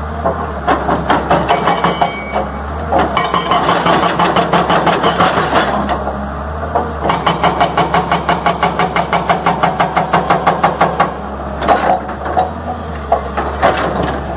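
Hydraulic rock breaker on an L&T-Komatsu PC200 excavator hammering boulders: rapid, even blows, several a second, in long bursts broken by short pauses. A steady low hum from the excavator's diesel engine runs underneath.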